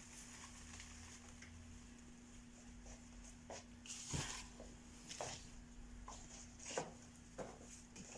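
Faint rustling and a few light taps as an artificial Christmas garland is handled and laid in place, over a steady low hum.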